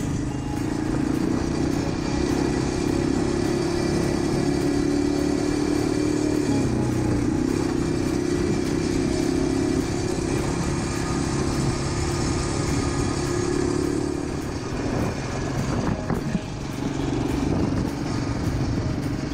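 Quad bike engine running as the ATV is ridden along a gravel dirt road; the engine note drops briefly about six or seven seconds in and eases off again near the end before picking back up.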